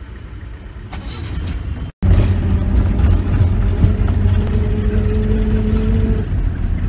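Car engine and road noise heard from inside a moving car's cabin: a steady low rumble with a steady hum over it. It breaks off briefly about two seconds in and comes back much louder.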